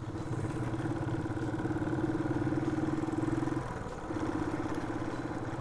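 Motorcycle engine running at a steady pace, easing off briefly about two-thirds of the way through and then picking up again.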